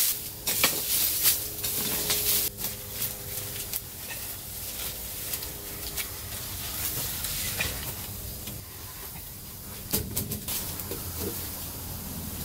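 Garden hoe chopping and scraping into dry soil and leaf litter: a run of sharp strikes in the first couple of seconds. After that come quieter scattered knocks, with a short cluster of knocks about ten seconds in.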